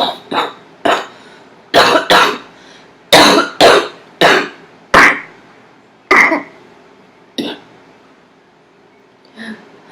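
A person coughing in a fit of about a dozen short, sudden coughs, some in quick pairs or threes, thinning out in the last few seconds. They are really empty, dry-sounding coughs that hurt her.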